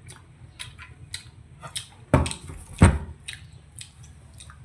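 Close-miked eating sounds: a person chewing with a run of short, wet mouth clicks, and two louder sudden sounds a little past two seconds in.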